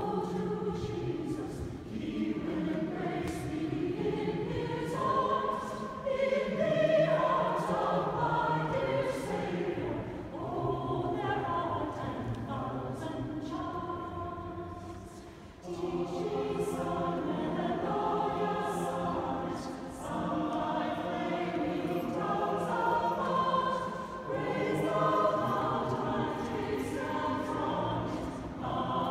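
Mixed choir of men and women singing together in a large stone church. The singing comes in phrases with short pauses between them, with a fade and a brief break about fifteen seconds in.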